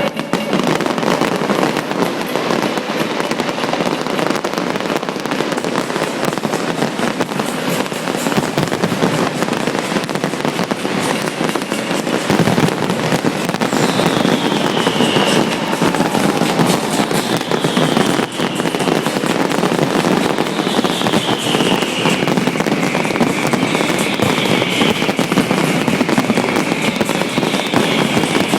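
Large fireworks display: dense, continuous crackling and banging from many shells bursting. About halfway through, a run of falling whistles starts and repeats every second or two.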